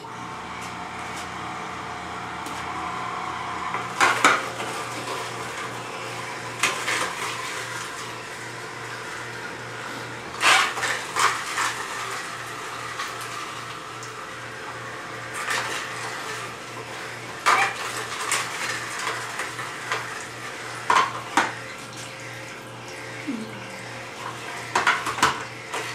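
Upright low-speed masticating juicer running on carrots: a steady motor hum with a fast, even low pulsing, broken several times by sharp cracks and clatters as carrot pieces are fed down the chute and crushed.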